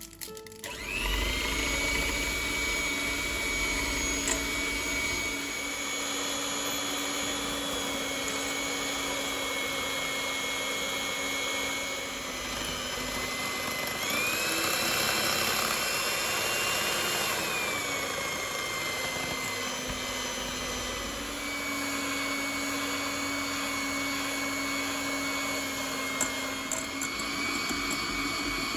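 Electric mixer whirring steadily as it whips meringue. It starts about a second in, runs briefly at a higher speed in the middle, then drops back to the lower speed.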